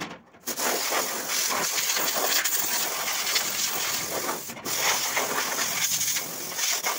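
Compressed-air paint spray gun hissing as it sprays paint, starting about half a second in. The hiss drops out for a moment as the trigger is let off about four and a half seconds in, then carries on.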